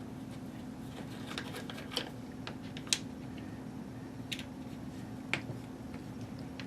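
Scattered small sharp clicks and taps of a metal hex key working the cap screws of a Bosch router and of the router's parts being handled, the loudest a little under three seconds in, over a steady low hum.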